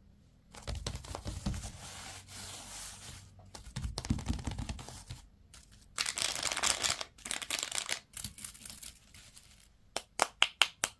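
Crinkly plastic candy packaging being handled and torn open, in irregular crackling bursts, with a quick run of about five sharp clicks near the end.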